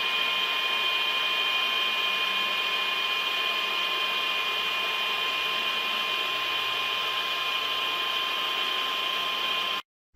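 Machine running steadily, a constant hiss with a steady high whine over it. It cuts off abruptly just before the end.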